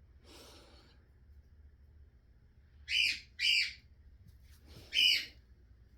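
Barnacle goose gander giving three short, high-pitched calls: two in quick succession about three seconds in, and one more about two seconds later.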